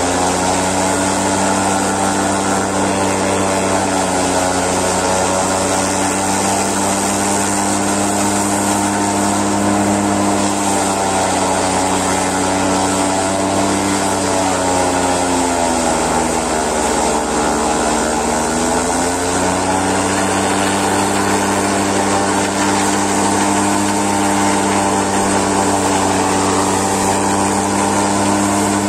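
Tractor engine running a PTO-driven forage chopper that is cutting napier grass for silage. The steady engine-and-cutter hum sags in pitch about fifteen seconds in as the engine takes a heavy load of grass, then picks back up to speed.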